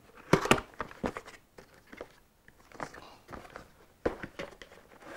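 Cardboard retail box being handled and opened: a scattering of irregular taps, knocks and scuffs of cardboard, loudest near the start and again about four seconds in.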